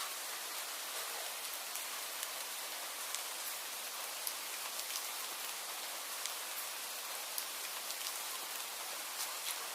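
Steady rain: an even hiss of falling rain with frequent sharp ticks of individual drops hitting a surface close by.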